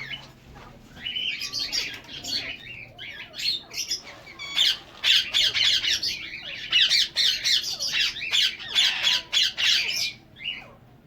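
Caged parrots squawking in harsh, rapidly repeated calls, busiest in the second half.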